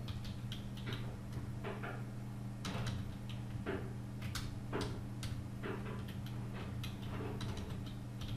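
Computer keyboard typing: irregular key clicks, a dozen or more, over a steady low hum.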